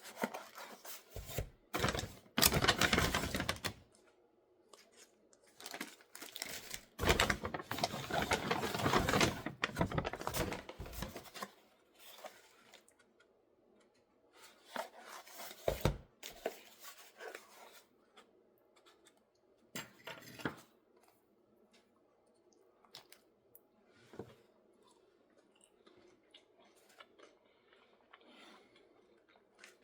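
Crinkling and tearing of packaging being handled, in two long rustling bursts, then shorter rustles and scattered light taps and clicks.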